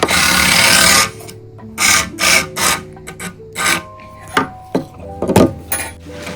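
Micro RC drift car's hard drift tyres scraping in repeated short bursts, over background music with held notes.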